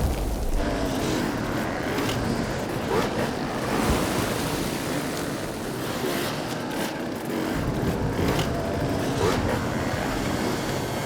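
A dense, steady wash of many hard enduro motorcycle engines running and revving at once as the pack sets off in a mass start.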